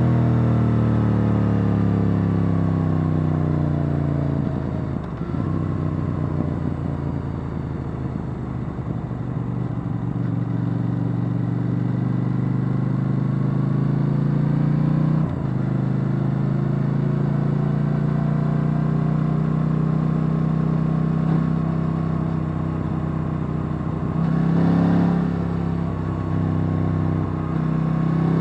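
KTM 890 Duke R's parallel-twin engine through its stock exhaust, heard on board while riding: the engine note falls for the first few seconds as the bike slows, then climbs steadily. It breaks off briefly about halfway through and again near the end, as at gear changes.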